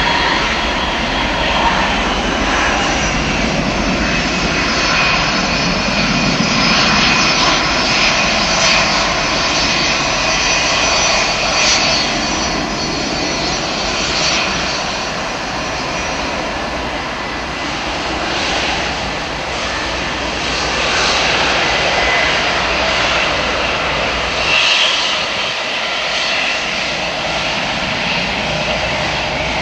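Boeing 757 freighter's twin turbofan jet engines running at low taxi thrust as the aircraft rolls past: a steady high whine over a rushing roar, holding an even level without spooling up.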